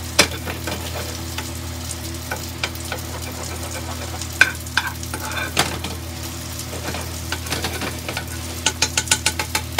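Sea bass fillets sizzling in foaming butter in a frying pan while a spoon bastes them with the hot butter, the spoon scraping and clicking against the pan. A quick run of sharp crackles comes near the end, over a faint steady low hum.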